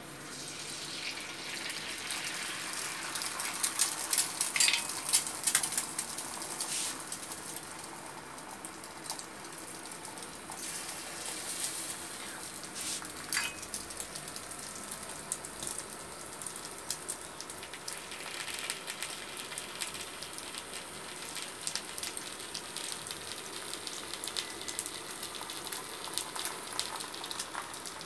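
Egg frying in a hot nonstick pan on an induction cooktop: steady sizzling dense with small crackling pops. It swells over the first few seconds after the egg goes in, then settles to an even sizzle.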